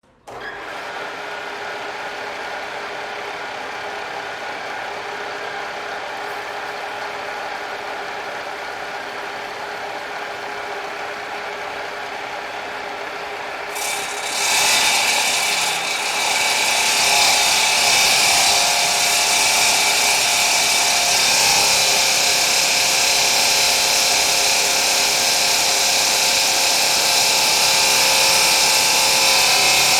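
Factory machinery running: a steady mechanical whir and hum holding several steady tones. It grows louder and harsher about halfway through, then steps up once more a few seconds later.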